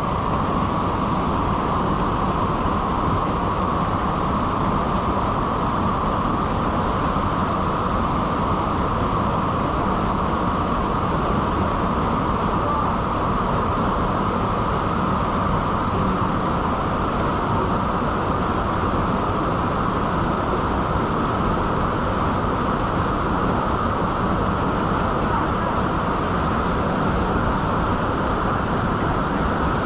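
Waterfall pouring, a loud, steady rushing of falling water that does not change.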